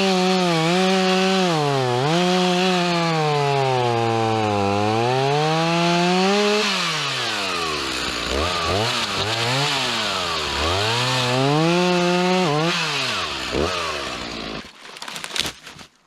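Two-stroke chainsaw running hard, its engine speed sagging and climbing back again and again as it cuts through wood, then shutting off near the end.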